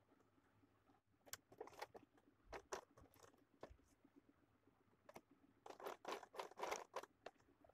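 Fabric being handled and moved under a sewing machine's presser foot: irregular crinkling and rustling, coming in two bunches, one from about a second in and a louder one near the end, over faint room tone.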